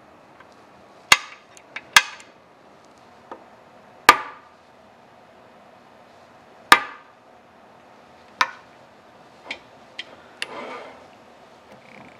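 A hand hammer striking metal: about five sharp single blows a second or two apart, each ringing briefly, with lighter taps between them, the blows used to deepen center-punch marks and to tap the workpiece down in a drill press vise. A short rattle near the end.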